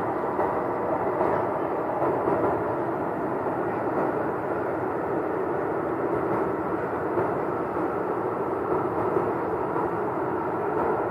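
Steady, unbroken droning noise with a faint hum running through it: one of the unexplained 'strange sounds' reported in the sky over the UK.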